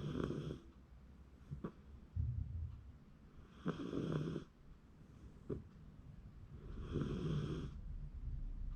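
Shiba Inu snoring in its sleep: three snores about three seconds apart, with faint clicks between them.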